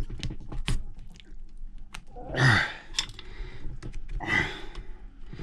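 Scattered light clicks and taps of a rubber track being worked by hand over the plastic sprockets and road wheels of an RC tracked skid steer. There are two short breathy sounds, about two and a half and four and a half seconds in.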